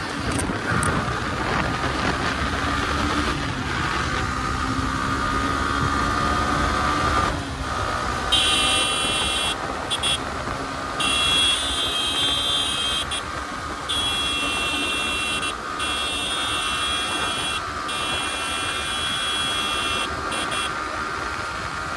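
Yamaha R15 V3's 155 cc single-cylinder engine running hard as the motorcycle accelerates to speed and then eases off, heard from the saddle with wind rumble on the microphone. From about eight seconds in, a high-pitched whine keeps cutting in and out.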